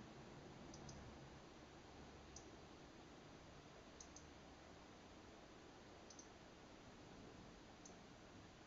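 Near silence with faint, high, short ticks about every second and a half, several in quick pairs: a European robin's tic call.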